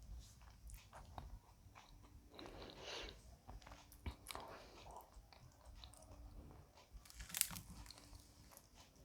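Faint close-up mouth sounds of chewing and swallowing: soft wet smacks and small clicks, with one sharper click about seven seconds in.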